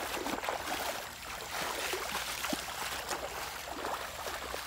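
Shallow river water sloshing and splashing as someone wades through it, over a steady rush of flowing water.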